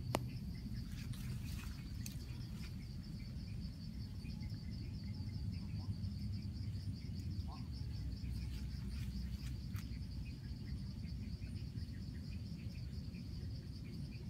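Insects trilling steadily in a high, rapid pulse over a low, even rumble, with one sharp click at the very start.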